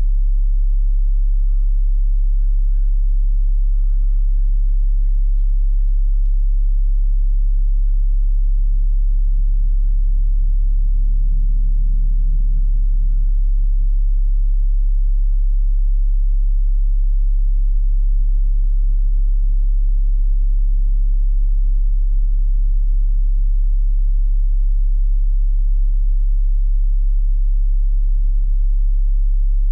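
A loud, steady low hum: one deep tone with fainter higher tones above it that swell and fade.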